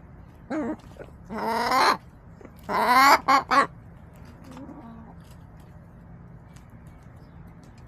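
Backyard hens calling in the first four seconds: a short call, a longer call, then a loud call about three seconds in with two quick ones right after. After that there is only faint low chatter.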